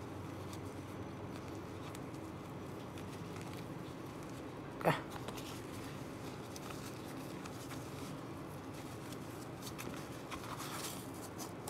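Faint rustling of a fabric drawstring lens pouch being handled and opened, over steady room hiss, with one short sharp sound about five seconds in.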